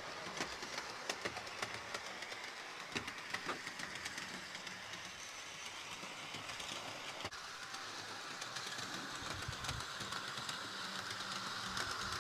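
Hawthorne Village HO-scale F3 model locomotive, pulling its dummy B unit, running around a track loop: a steady electric motor whir, with small wheel clicks over the track joints that come thickest in the first few seconds, the whir growing a little louder toward the end.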